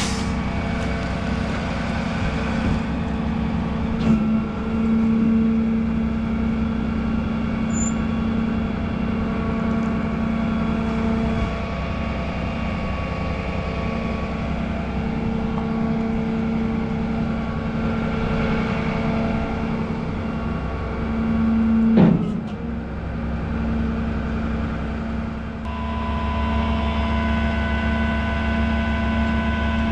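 Tow truck's engine running steadily, with a sharp clank about twenty-two seconds in and a smaller knock earlier. The engine note shifts to a deeper, stronger rumble near the end.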